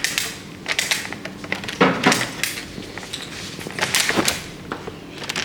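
A door being worked open by hand: a run of clicks, knocks and rattles from its latch and frame, the loudest about two seconds in and again about four seconds in.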